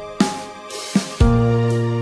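Instrumental background music: a steady drum beat under long held notes.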